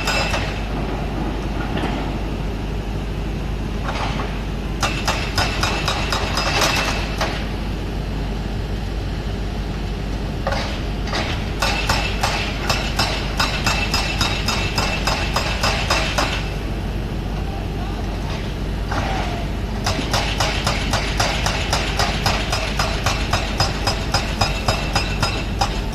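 Excavator's diesel engine running steadily, with three stretches of fast, rhythmic metallic clanking and a high squeal, typical of steel crawler tracks moving.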